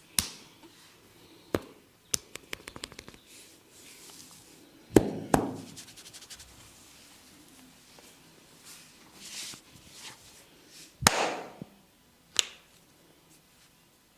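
Hands at work in a vigorous head and neck massage, making a string of sharp slaps and cracks a few seconds apart, with a quick run of about ten light ticks between two and three seconds in, and the loudest smacks about five seconds in and near eleven seconds.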